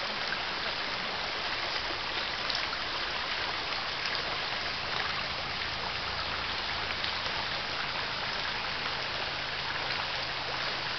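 Shallow stream running steadily over a stony bed, a constant rush of water.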